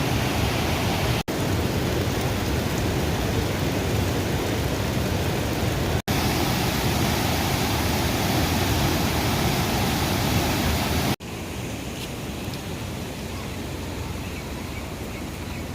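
Steady rush of a fast-flowing river, an even roar of water with no distinct events. It drops out for an instant three times, and after the third break it continues a little quieter.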